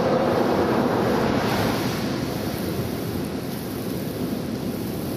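Rolling thunder from a nearby lightning strike, rumbling and slowly fading over the first few seconds, with a steady rush of wind on the microphone.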